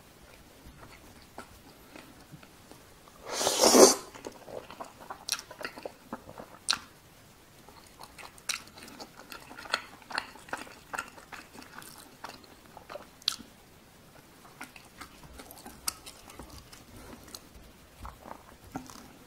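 Close-up wet chewing of cheese tteokbokki: soft, sticky mouth clicks and smacks as chewy rice cakes and melted cheese are chewed. One loud, noisy mouth sound comes about three and a half seconds in as a mouthful is taken in.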